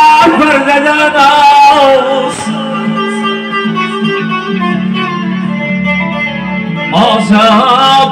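Live Uzbek band music: a man singing over keyboard and frame drum for the first two seconds. Then comes an instrumental passage of steady held keyboard notes with a plucked-string sound. The singing and drum strokes come back about seven seconds in.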